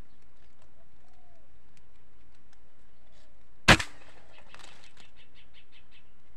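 A single sharp crack of an air rifle shot about three and a half seconds in, followed by a quick run of wing flaps, about six to eight beats, as a bird takes off.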